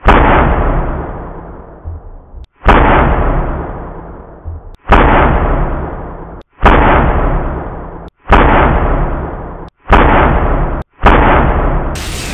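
Seven heavy explosion booms in a row, each hitting suddenly and fading away over a second or two, coming closer together toward the end; a hissing rumble takes over near the end.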